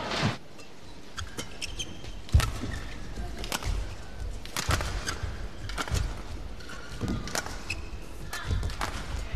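Badminton rally: rackets striking the shuttlecock about six times, a little over a second apart, the hit about two seconds in the loudest. Shoes squeak on the court between hits over a low arena crowd hum.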